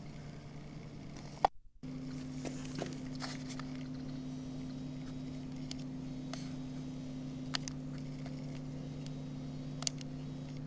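Steady low electrical hum on the recording, with a few faint clicks. About a second and a half in a sharp click cuts the sound out briefly, and the hum comes back with a second, higher tone added.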